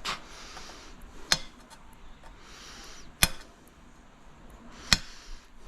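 A tool tapping on a hard ceramic tile in place of a hammer, four sharp knocks a second or two apart, to knock out the grinder-cut round piece.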